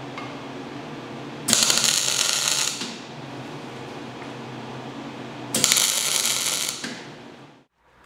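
MIG welder arc crackling in two short welds of about a second and a half each, tacking steel tabs onto thick angle steel, over a steady low hum.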